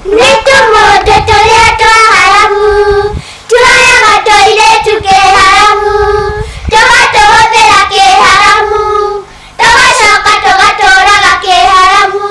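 Children singing a melody in four phrases of about three seconds each, with short breaks between them.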